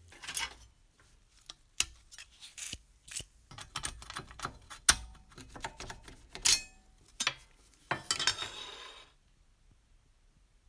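Irregular metallic clicks and clinks of small metal parts and hand tools being handled, with a short scraping rub about eight seconds in. The sounds stop about nine seconds in.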